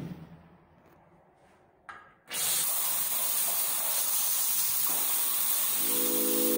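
A short knock, then a couple of seconds in a shower comes on all at once with a steady hiss of spraying water that keeps running.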